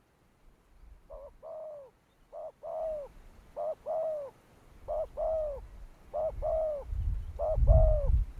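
A dove cooing: six calls about a second apart, each a short note followed by a longer arched coo. A low rumble comes in near the end.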